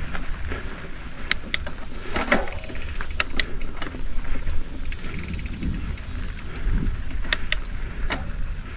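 Full-suspension mountain bike ridden over a rough dirt trail: a steady low rumble of wind and tyres, with scattered sharp clicks and rattles from the bike over bumps.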